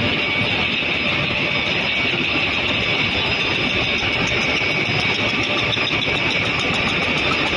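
Sanitary napkin making machine running at production speed: a steady, dense mechanical clatter with a thin steady whine through it.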